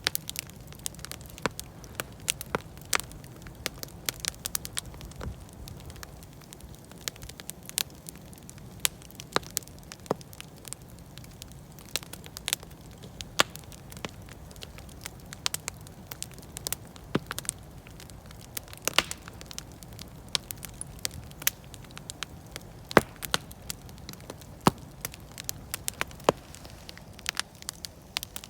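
Wood campfire crackling, with irregular sharp pops and snaps throughout over a low, steady rumble of the flames.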